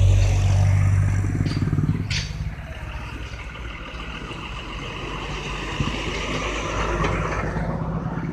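Road traffic on a hairpin bend: a car's engine close by at the start, fading within about two seconds, then a truck's engine working as it turns through the bend. A motorcycle's engine grows louder near the end as it comes closer.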